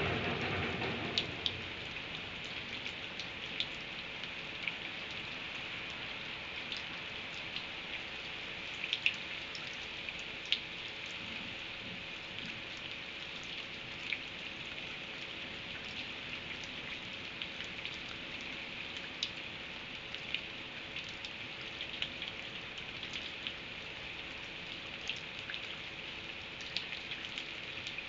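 Steady rain falling, with scattered single drops ticking sharply on a hard surface. A roll of thunder dies away in the first second or so.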